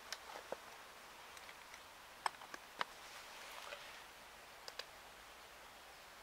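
Quiet, with faint hiss and a scattering of short, light clicks and ticks, the sharpest two a little over two seconds in. The rotary hammer is not running.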